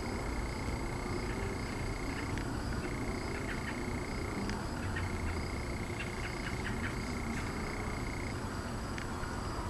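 Night chorus of calling animals: a steady high-pitched trill that breaks off and starts again every few seconds, with scattered short chirps, over a low, even rumble.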